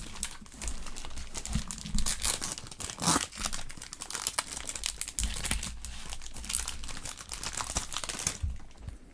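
Foil wrapper of a Yu-Gi-Oh booster pack crinkling and tearing as it is ripped open by hand, a dense irregular crackle that dies down about eight seconds in.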